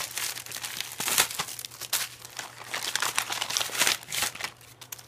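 Plastic packaging crinkling and rustling in irregular bursts as it is handled and pulled at, loudest about a second in and again near four seconds, fading near the end.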